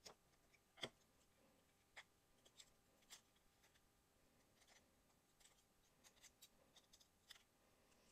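Near silence broken by faint, scattered small clicks and ticks, the loudest about a second in: a small pointed pick tool tapping against a thin metal cutting die while poking cut paper pieces out of it.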